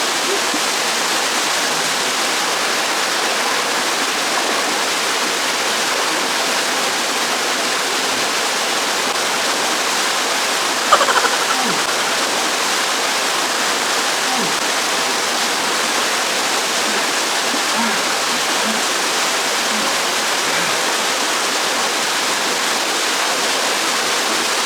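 Waterfall pouring steadily, a constant rushing hiss of falling water. A brief sharp sound stands out about eleven seconds in.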